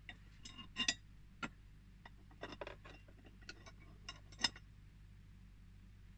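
About a dozen light, irregular clicks and clinks of hard objects being handled, the loudest about a second in and again near four and a half seconds.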